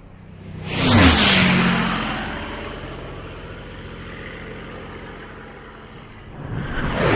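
A car speeds past about a second in. Its engine pitch drops sharply as it goes by, then fades away slowly. Another loud pass builds near the end.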